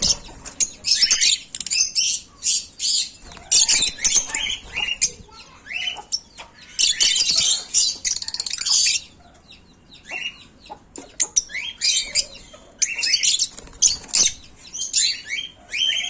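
A cage of African lovebirds calling: rapid, shrill, high-pitched chirps and screeches from several birds at once, thickest in a busy stretch near the middle.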